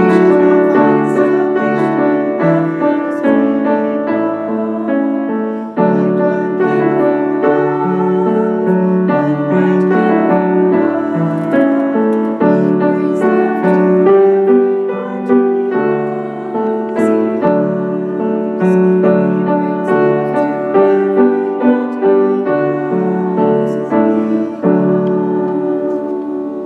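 Piano playing a slow closing tune in chords, which cuts off suddenly at the end.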